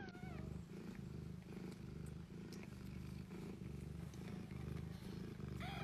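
Sphynx mother cat purring faintly and steadily while her newborn kittens nurse. A short wavering squeak comes at the very start, and a thin high call near the end.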